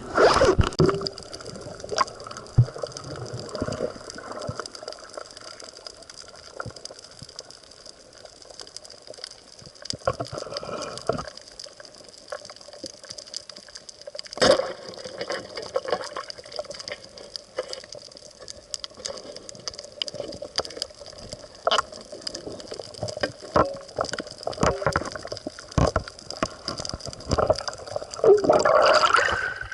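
Water sloshing and gurgling around a spearfisher's camera, with many scattered sharp clicks and two louder rushes of water, one just after the start and one near the end.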